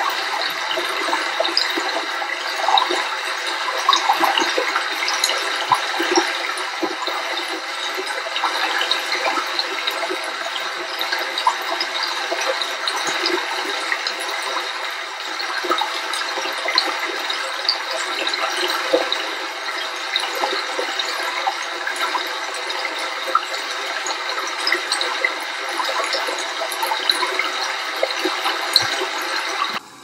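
Steady running and splashing water, a continuous rush dotted with many small droplet splashes.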